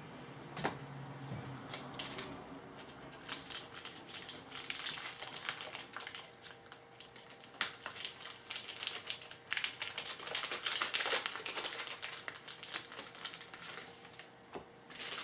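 A trading card pack wrapper crinkling as it is torn open, with the cards rustling and clicking as they are handled, in irregular bursts.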